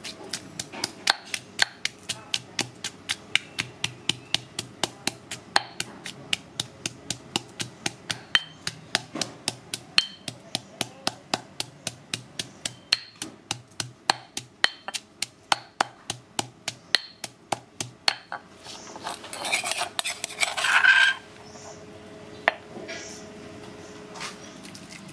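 Stone pestle pounding garlic cloves in a granite mortar, sharp knocks at about three a second. Near the end the pounding stops and a metal spoon scrapes the crushed garlic around the stone bowl.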